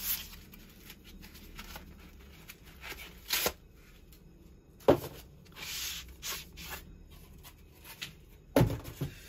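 Cardboard box of a chainsaw guide bar being opened and handled with gloved hands, and the bar pulled out: rustling and scraping with a few sharp knocks, the loudest about five seconds in.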